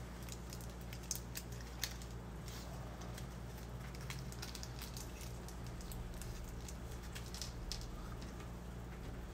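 Scattered light clicks and taps of small model-kit parts, a screw and a screwdriver being handled, over a steady low hum.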